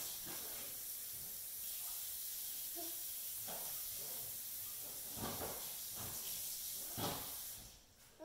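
A knitted throw blanket rustling and swishing as a baby waves it about, with a few soft thumps of arms and fabric on a foam play mat; the rustling stops near the end.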